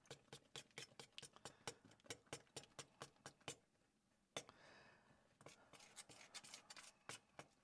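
Faint, quick clicking and scraping of a table knife against a mixing bowl as it stirs beaten eggs into a flour mixture for scone dough, about five light clicks a second. The clicking stops briefly a little past the middle, gives way to a short soft scrape, then resumes.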